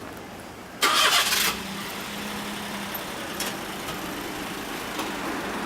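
A vehicle engine nearby: a loud, hissing burst about a second in, then a steady running hum.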